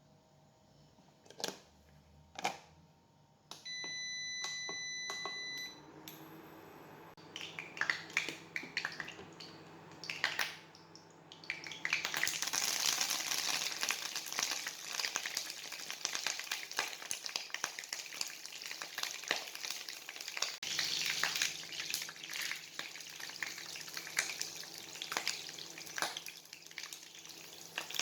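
A long electronic beep, then scattered crackling that turns into a loud, steady hiss full of pops about twelve seconds in: food sizzling in hot oil in a pan.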